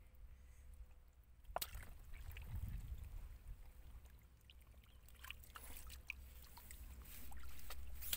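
Hands digging and squelching in wet mud, with scattered small clicks and a sharp knock about a second and a half in, over a low wind rumble on the microphone.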